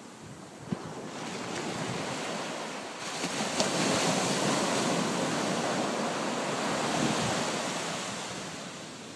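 Sea waves breaking and washing up a shore. The surf swells up over the first few seconds, stays loud through the middle, then fades away near the end.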